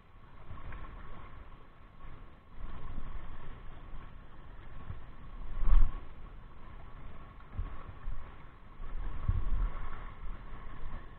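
Wind buffeting the microphone in uneven gusts of low rumble, under a faint steady hum, with one sharp thump about six seconds in.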